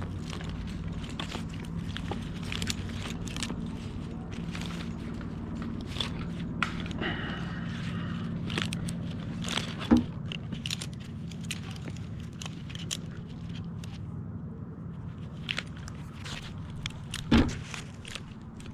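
Climbing rope and metal rigging hardware being handled: irregular scrapes and clicks, with two sharper knocks about ten seconds in and near the end, over a steady low hum.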